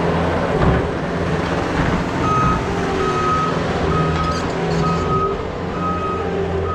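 A vehicle's backup alarm beeping about once a second, starting about two seconds in, over the steady running of its engine as it reverses.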